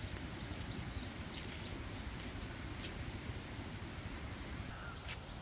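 Steady insect chorus, crickets holding one unbroken high note, over a constant low background rumble.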